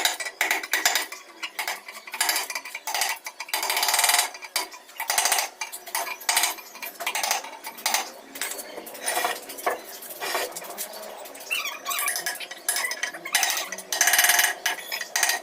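Irregular scraping and clinking of hard objects against a hard surface, in rapid uneven strokes.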